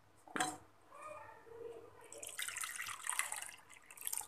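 Water poured into a bowl of soaking rice and dal, a short splashing pour lasting about a second and a half past the middle, preceded by a light clink of a dish.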